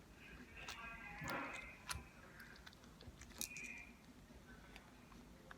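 Crunchy slime being squeezed and poked by hand, giving faint scattered clicks and crackles, thickest about one to two seconds in.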